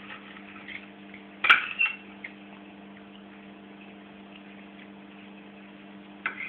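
Cutlery clinking against a plate during a meal: one sharp clink about a second and a half in, a few lighter ones just after, and another near the end, over a steady electrical hum.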